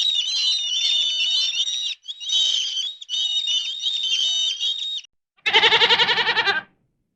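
High-pitched chirping and warbling, broken by two short cuts and stopping about five seconds in. It is followed by one loud, quavering bleat lasting about a second.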